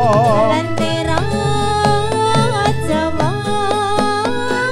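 Live Ndolalak music from Purworejo over a sound system: a singer's wavering vibrato line in the first half second, then a melody of held notes over regular drum strokes and a stepping bass line.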